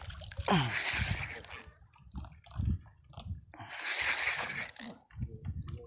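Seawater sloshing against the side of a small boat in irregular bursts, with low thumps.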